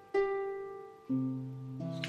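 Background music on a digitally played Celtic harp: a plucked note rings and fades, then lower notes and a chord come in about a second in.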